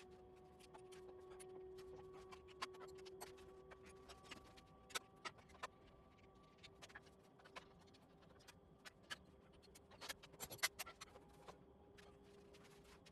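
Faint, irregular clicks and taps of hand tools and parts being handled during a garden tractor teardown, with a quick cluster of louder clicks about ten seconds in, over a faint steady hum.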